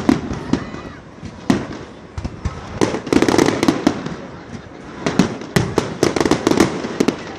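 Fireworks display going off: a fast, irregular string of sharp bangs and crackling pops, densest in clusters around the middle and again about two-thirds of the way through.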